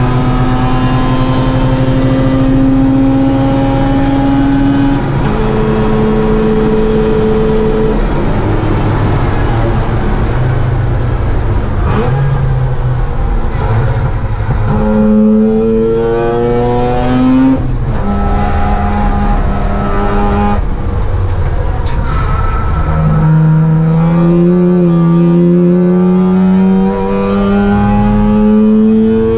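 Mazda RX2's 13B peripheral-port rotary engine racing at full throttle, heard from inside the cabin. Its note climbs in pitch through each gear and drops sharply at the upshifts, with a rougher, unsteady stretch around a corner in the middle.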